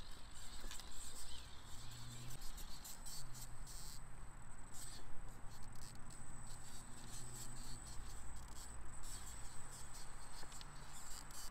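Small 1/18-scale RC rock crawler (Axial Capra UTB18) crawling over rocks: a steady high electric whine from its motor and drivetrain, with irregular clicks and scrapes of its tyres and chassis on the stones.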